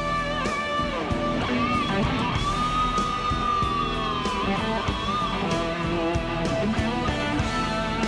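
Rock music with an electric lead guitar playing long notes that bend up and down in pitch over sustained chords.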